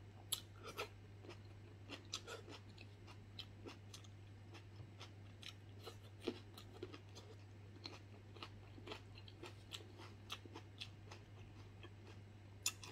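Close-up eating sounds: chewing with a string of short, wet mouth clicks and smacks, a few louder ones near the start and end, over a steady low hum.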